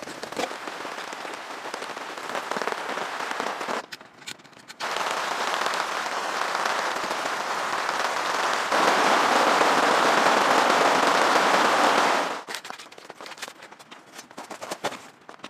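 Steady rain falling on a tent and tarp, a dense hiss that drops away briefly about four seconds in and is loudest from about nine to twelve seconds in. Near the end the rain fades to a few light clicks and taps.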